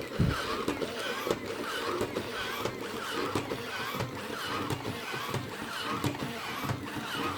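Robosapien V2 robot walking: its gear motors whir and its joints and feet click in a steady rhythm of about two steps a second.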